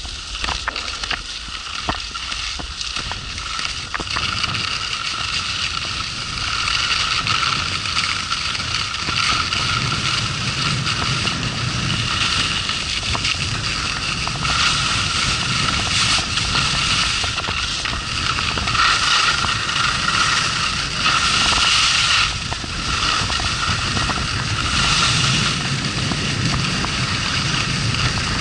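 Wind rushing over the microphone of a camera skiing downhill, with skis hissing and scraping on groomed snow; it gets louder after about five seconds.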